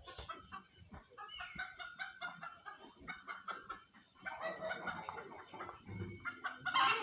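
Chickens clucking in a string of short calls.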